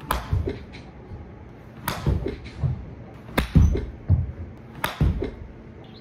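Golf iron striking balls on an artificial-turf practice mat, repeated short swings: four sharp clicks about a second and a half apart, each followed by softer thuds.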